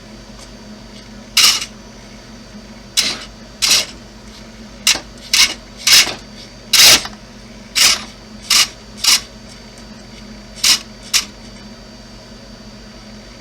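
Kyosho Blizzard RC snow tractor's electric motors whirring in about a dozen short, irregular blips as the touchy controls are worked.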